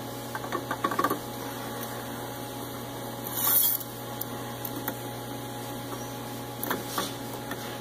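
Faint clicks and light knocks of a tack-welded steel upper control arm being pressed and rocked on a flat surface, over a steady electrical hum, with a brief hissing rush about three and a half seconds in.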